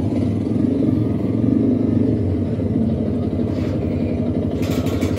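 Motorcycle engine running under way, heard on a video's sound track as the bike rides along, its note rising a little about one and a half seconds in, with brief hiss near the end.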